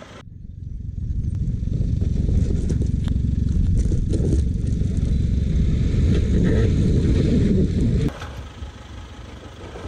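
LDV T60 MAX ute working its way over loose dirt, heard close to the front wheel as a heavy low rumble of engine and tyres scrabbling in the dirt and throwing up dust. It builds up over the first second or two and cuts off suddenly about eight seconds in.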